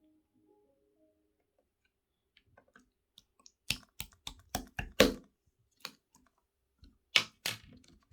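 Pearl slime squeezed and pressed by hand, giving a run of about ten sharp clicking pops, bunched together after about three and a half seconds and again near the end.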